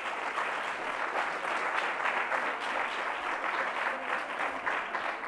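Audience applauding, a dense patter of many hands clapping that begins to die down near the end.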